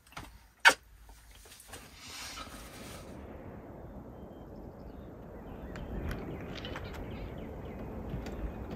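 A sharp click about two-thirds of a second in, then steady outdoor ambient noise, like wind in bare woods, that builds over the first few seconds, with scattered light ticks in the second half.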